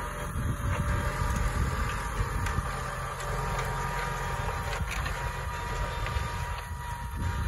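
New Holland tractor's diesel engine working steadily under load while pulling a five-furrow Dowdeswell reversible plough through the soil, with a faint steady whine over the engine note.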